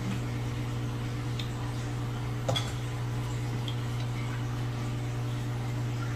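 Chopsticks and tableware clinking faintly at a meal, with one sharper clack about two and a half seconds in, over a steady low hum.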